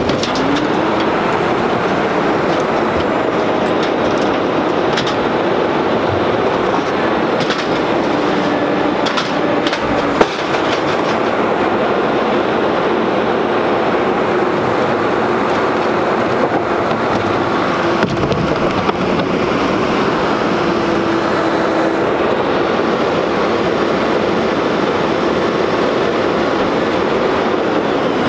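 Rear-loading garbage truck running with its engine held up in speed to drive the hydraulic packer: a steady drone that climbs just after the start and holds. Over it come clanks and knocks of trash carts being tipped into the hopper, the sharpest about ten seconds in.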